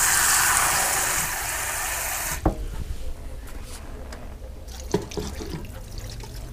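Water running loudly for about two and a half seconds, ending in a sharp click. Then, near the end, a quieter pour of water from a plastic measuring cup onto pasta shells in the pressure cooker's inner pot.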